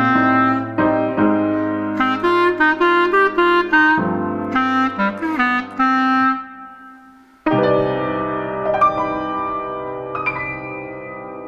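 Piano and a woodwind playing the closing phrase of a jazzy song, a run of short notes that thins out and pauses, then a final held chord about halfway through that slowly fades away.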